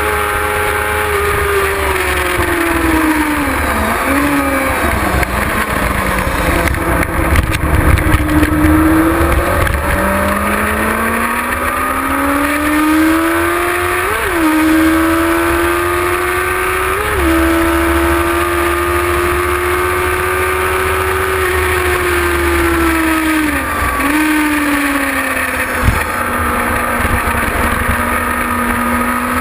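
Kawasaki ZX-6R's inline four-cylinder engine under hard riding on a race track, with wind hiss over the onboard mic. The revs fall a few seconds in, climb again about ten seconds in and hold high for several seconds with a couple of brief rev spikes. They drop once more with short blips near the end and settle lower.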